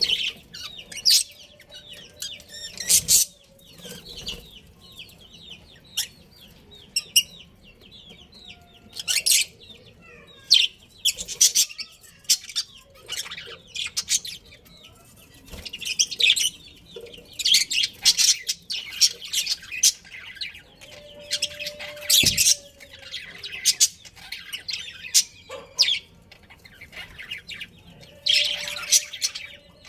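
Budgerigars chirping and chattering in quick, irregular bursts of high-pitched calls.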